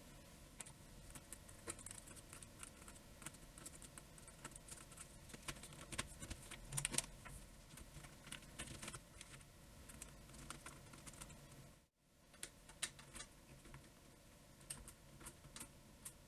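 Typing on a newly built custom keyboard: quiet, irregular key clicks, with a brief break about twelve seconds in.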